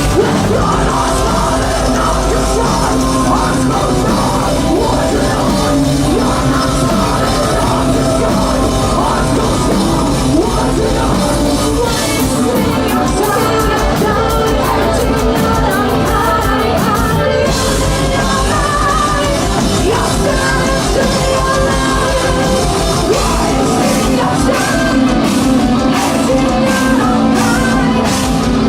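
Live heavy metal band playing loudly, with sung and yelled vocals over the band, heard from the crowd.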